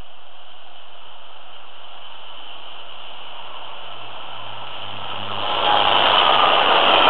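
A Class 67 diesel locomotive hauling a passenger train draws near over a steady background hiss. A low engine note comes in about three seconds in, and the rumble of the train grows louder about five seconds in as it reaches the camera.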